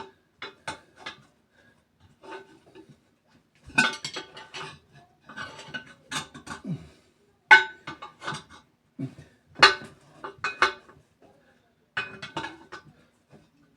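Metal tire-changing bars clinking and clanking against the wheel rim as the tire bead is levered off a little at a time: irregular sharp metallic knocks, sparse at first and more frequent from about four seconds in.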